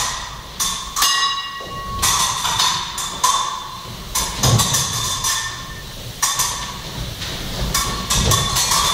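Steel fencing blades clashing during a bout: a run of sharp metallic clicks, each ringing briefly, coming irregularly every half second to a second.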